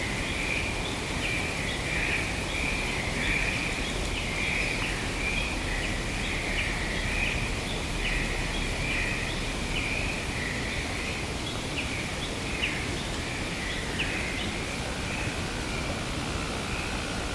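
Forest ambience: a continuous, pulsing high-pitched chorus of calls with short chirps over it, against a steady hiss of wind. A second, lower-pitched call joins near the end.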